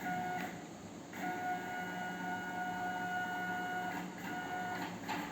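Stepper motor driving a handmade CNC Z-axis mechanism, giving a steady high-pitched whine. It runs briefly, stops, runs for about three seconds, then makes a few short moves near the end.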